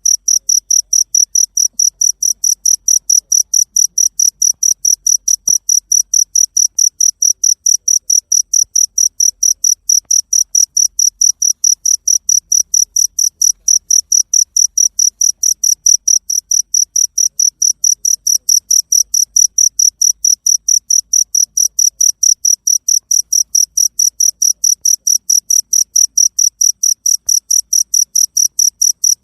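Cricket chirping steadily, an even train of high chirps at about four a second.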